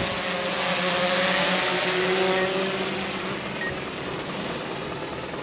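Quadcopter camera drone in flight on freshly replaced propellers: a steady buzzing hum of its motors and propellers over a high hiss, slowly getting fainter.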